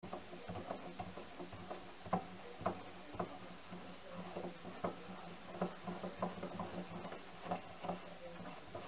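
Mini lathe compound slide being cranked by hand: irregular knocks and clicks, one or two a second, as the sticking feed screw turns in jerks, over a steady low hum. The handle binds because its original mounting has no proper bearing.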